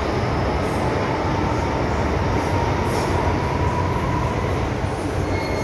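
Cabin noise of an MTR M-Train electric multiple unit in motion: a steady rumble of wheels and running gear on the track, with a faint steady whine through the middle.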